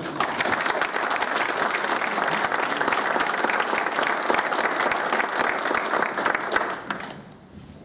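Audience applauding, a dense patter of many hands clapping that fades out about seven seconds in.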